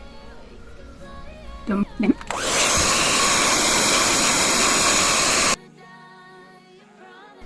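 Handheld hair blow dryer blowing a loud, steady rush of air for about three seconds before cutting off suddenly, drying the glue on a wig's lace.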